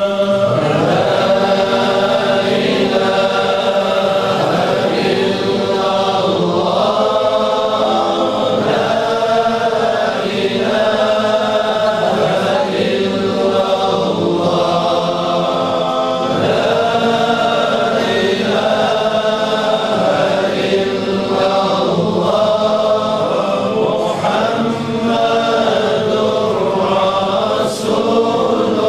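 A group of men's voices chanting together in unison, a Sufi dhikr chant, with a short melodic phrase repeated over and over without a break.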